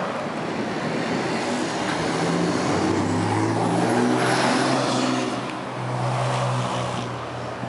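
A motor vehicle's engine running, its low hum coming up about three seconds in and fading near the end, with wind rumbling on the microphone.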